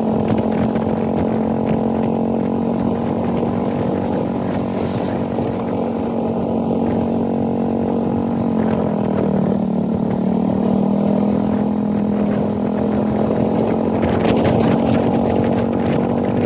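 TVS Apache RR310's single-cylinder engine running steadily, its pitch dipping slightly about nine seconds in and then holding.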